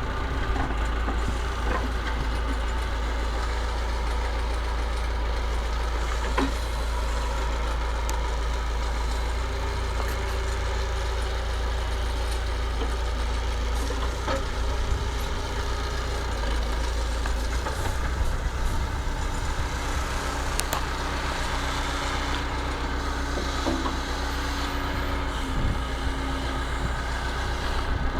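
Massey Ferguson 50HX backhoe loader's diesel engine running steadily, with a few light knocks and a steady tone that comes and goes in the second half.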